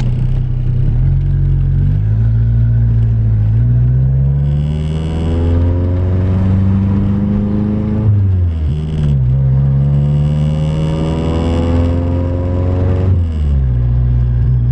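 Nissan 240SX engine pulling away from low revs, its note climbing steadily, dropping sharply at a gear change about eight seconds in, climbing again, then falling back to a steady low idle near the end.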